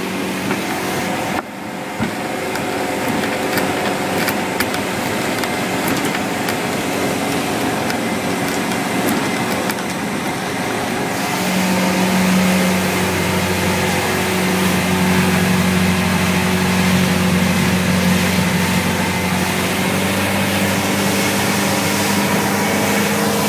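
A boat's engine running steadily, a droning hum that grows louder about halfway through.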